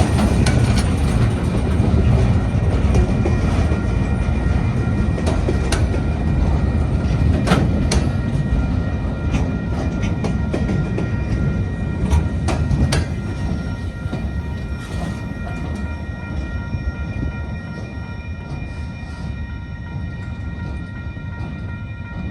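A train rolling past: a heavy low rumble with sharp clicks of the wheels over rail joints, fading away over the last several seconds as it moves off. A few thin, steady high-pitched tones linger as it recedes.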